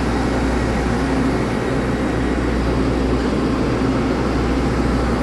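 Steady hum of a stationary Taiwan Railway EMU3000 electric multiple unit standing at the platform, its on-board machinery giving a constant low drone with a faint held tone above it.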